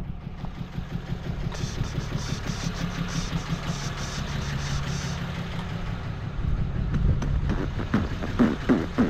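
An engine running steadily with a rough low hum, and a fast-flickering high hiss from about one and a half to five seconds in.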